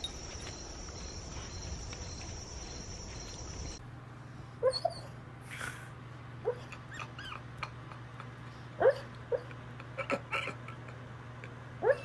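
A steady high insect drone for the first few seconds. Then, from about four seconds in, a sleeping pit bull gives about ten short, high whimpers and yips in its sleep, the loudest near the end.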